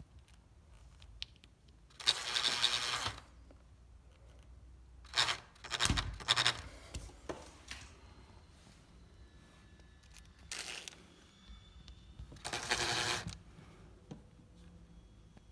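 Hand-work noises from fitting small plastic blind fixings onto a uPVC window frame: two scraping bursts of about a second each, a sharp knock, and scattered clicks.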